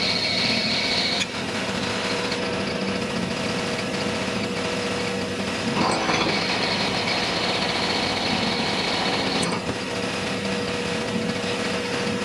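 Milling machine running, its end mill cutting an aluminum workpiece with a steady machine hum and a high cutting noise. The cutting noise is strong at first, eases after about a second, and is strong again for a few seconds in the middle.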